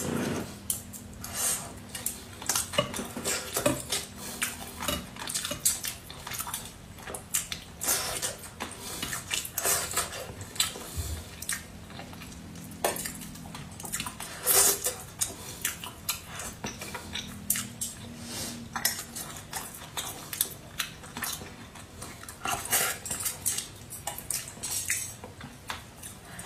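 Close-miked eating: chopsticks and a spoon clinking, tapping and scraping against a metal bowl and a plate of braised fish in sauce, in irregular clicks throughout, with mouth sounds of eating in between.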